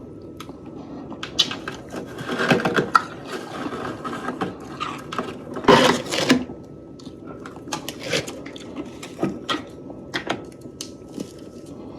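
Fresh freezer frost crunching and crackling in short bursts, with scattered sharp clicks between them; the loudest crunches come about two and a half seconds in and again about six seconds in.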